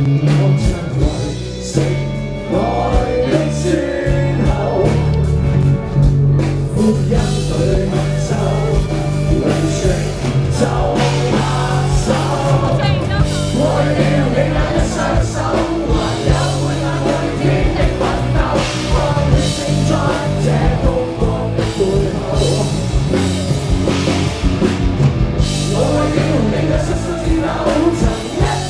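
Live rock band playing a song.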